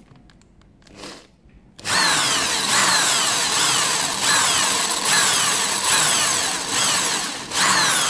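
Corded electric drill with a small bit drilling into the stripped Torx pivot screw of a balisong, drilling out the screw head. It starts about two seconds in and runs on, with a whine that sweeps down in pitch again and again, about every two-thirds of a second.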